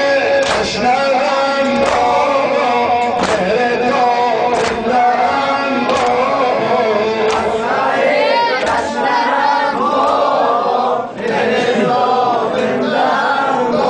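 Male singer chanting a Muharram mourning song (noha) for chest-beating, with other voices joining in chorus over a sharp beat about every second and a half.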